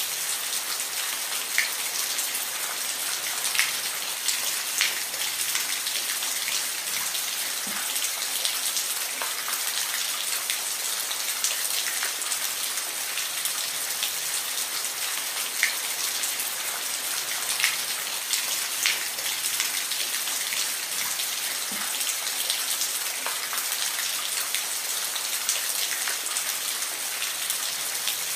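Steady rain falling, an even hiss with scattered close drops ticking sharply on a hard surface.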